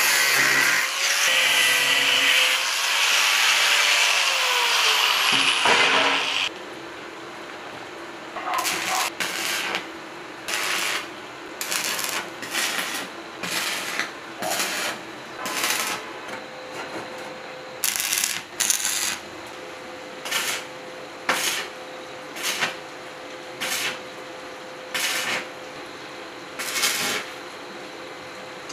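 Angle grinder with a cut-off disc cutting galvanized sheet metal, its pitch wavering under load; it stops about six seconds in. Then comes arc welding: a run of short crackling bursts, about one a second, as tack welds go onto a sheet-metal box.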